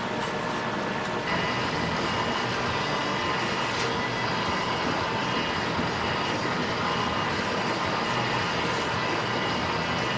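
Steady mechanical drone of a workshop machine running, with a faint whine of steady tones over a broad noise. It steps up slightly about a second in.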